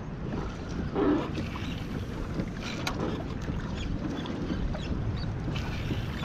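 Water washing along the hull of a kayak as it moves through the water, with wind on the microphone. There is a brief louder sound about a second in.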